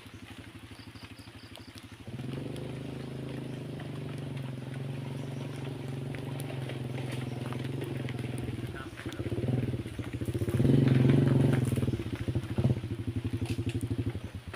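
A small engine running. It steps up in level about two seconds in, revs up to its loudest around ten to twelve seconds in, then stops abruptly near the end.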